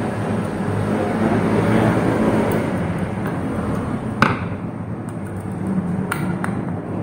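Steady low rumbling background noise, with a sharp click about four seconds in and two lighter clicks near the end from handling wires and terminals on a wiring board.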